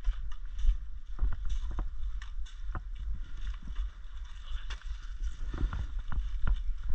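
Low rumble on the microphone, with irregular knocks and clicks scattered through it.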